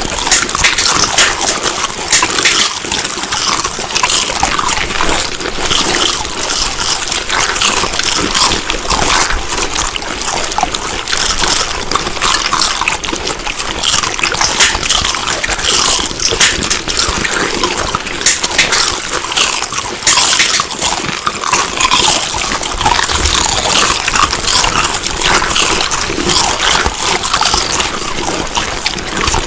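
Close-up chewing of food: a continuous run of wet, crackly mouth sounds with many small clicks.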